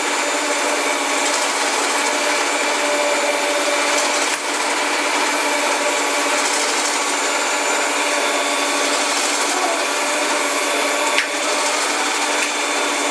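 Electric stand mixer running steadily at speed, its beaters working through creamed butter and sugar as the eggs are beaten in one at a time. A brief knock sounds about four seconds in, and another comes later.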